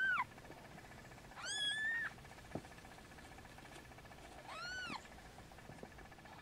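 Newborn kitten mewing: three thin, high-pitched calls that rise and fall, the middle one longer and held at the top, about two seconds apart.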